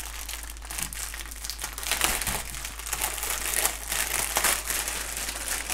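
Clear plastic wrapping crinkling continuously as hands work open a plastic-wrapped bundle of diamond-painting drill bags, getting louder about two seconds in.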